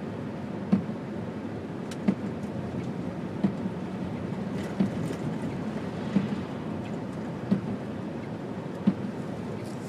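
Steady car cabin noise, engine and road hum, with a short thump at an even beat about every second and a half, typical of windshield wipers sweeping snow.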